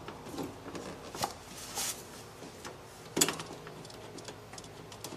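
Scattered light clicks and taps of a brass compression nut on a 1/4-inch copper ice maker line being threaded by hand onto a refrigerator's water inlet valve, with one sharper click about three seconds in.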